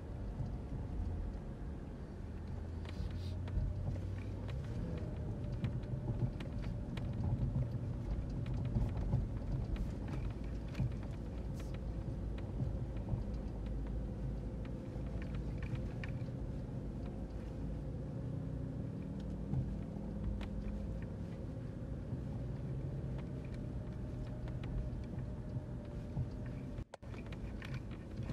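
A car driving, with a steady low engine and road rumble. The sound cuts out briefly twice near the end.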